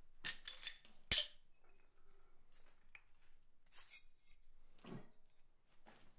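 Thin steel chest-handle backplates clinking against each other and the anvil as they are set down. A quick run of light metallic clinks comes first, then one sharp, louder clank about a second in, then a few fainter clinks and a soft knock.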